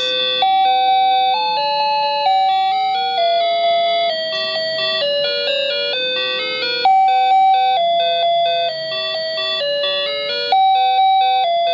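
Wireless doorbell receiver playing one of its 32 built-in electronic chime melodies: a simple tune of clear electronic notes, one at a time, each held for about half a second to a second.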